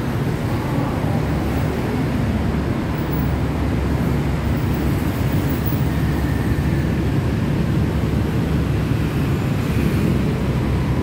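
Steady low rumble of city road traffic: cars, taxis and motorbikes running on the street.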